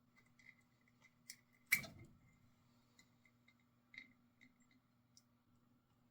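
Small clicks and knocks of a furnace pressure switch being handled and detached, with one sharp, louder click about two seconds in, over a faint steady low hum.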